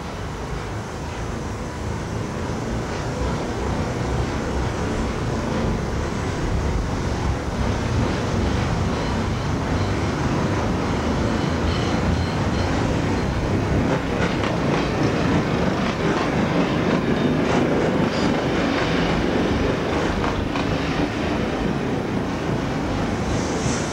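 Class 107 diesel multiple unit running past close by: a steady rumble of the train, with faint clicks of wheels over rail joints. The noise builds over the first few seconds.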